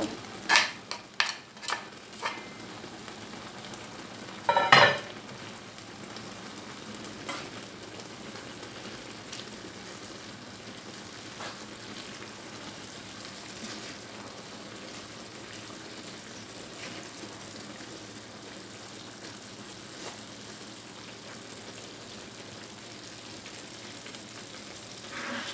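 Spinach cooking in a pot, with a steady sizzling hiss, while a spoon stirs it. A few sharp knocks of the spoon against the pot come at the start, and there is one louder knock about five seconds in.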